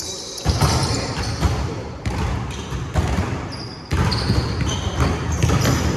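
Basketball bouncing on a gym court during a pickup game, with irregular thuds and short high-pitched sneaker squeaks.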